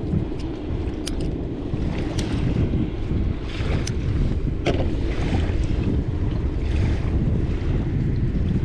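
Wind rumbling on the microphone over the wash of sea waves, with a few scattered sharp clicks.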